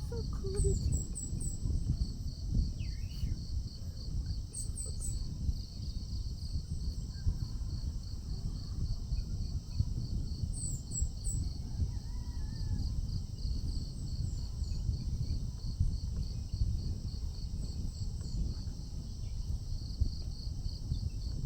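Outdoor morning ambience: insects chirping in a steady pulse of about three a second over a constant high insect hum, with a few short bursts of bird chirps. A steady low rumble runs underneath.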